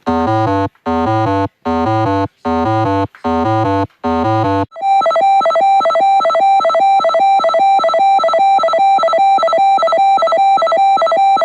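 Loud electronic synthesizer music. Five short identical blasts come with gaps between them, then from about five seconds in a fast, evenly pulsing repeated tone.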